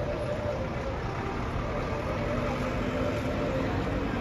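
Steady low rumble of vehicle engines and traffic, with no sudden sounds.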